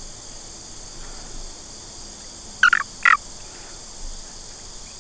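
American toad chirping twice in short bursts, about two and a half and three seconds in: the release call it gives when held with light pressure. A steady hum of insects runs underneath.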